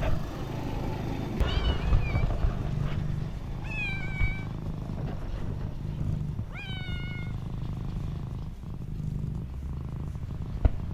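A stray cat purring steadily while giving three short meows, about two to three seconds apart. A sharp click comes near the end.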